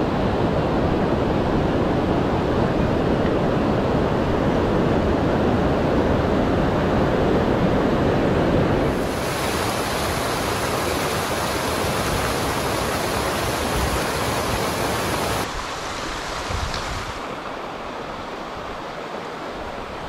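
Rushing water of a mountain creek, a loud steady rush that changes tone abruptly about nine and fifteen seconds in.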